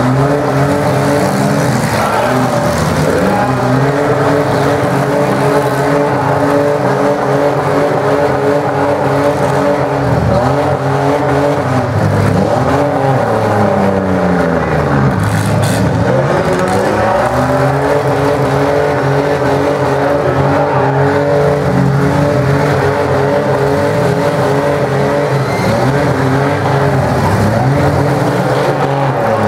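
Several demolition derby car engines running loud and revving up and down, their pitch rising and falling; about halfway through, one engine drops sharply and climbs again.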